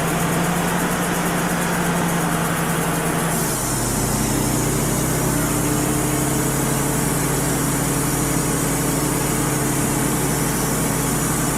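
Wood-Mizer LT35 HD portable sawmill's diesel engine running steadily. About three and a half seconds in, the engine note drops and a steady high hiss rises, as the band blade goes into the red oak log under load.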